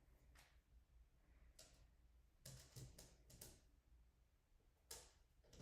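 Near silence: room tone with a few faint, short clicks and soft knocks, bunched a little past the middle.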